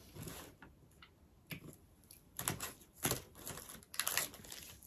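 Plastic snack wrapper crinkling and crackling in irregular bursts as it is handled.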